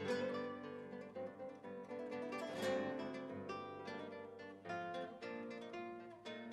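Background music played on acoustic guitar, with plucked notes and strummed chords.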